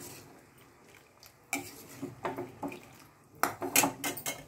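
Steel spoon clinking and scraping against a steel kadhai while stirring sugar syrup: a few separate knocks, then a quick run of clinks near the end.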